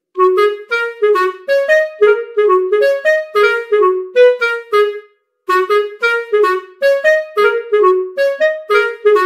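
Clarinet playing a lively melody of short, separate notes in its middle range, with a brief pause about halfway through.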